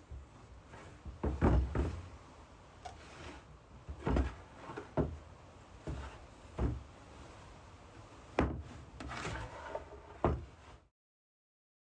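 Scattered wooden knocks and thuds from a pallet-wood trolley frame being handled, about seven over ten seconds, then the sound cuts off abruptly near the end.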